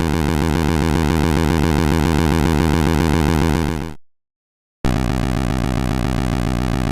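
Synthesizer background music with a steady, repeating pulse. It fades out about four seconds in, and after a brief silence a similar synth track starts abruptly.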